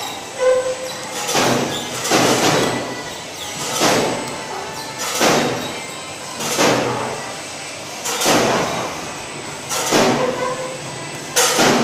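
Automatic sticker labeling machine running, with a noisy mechanical stroke that repeats about every one and a half seconds.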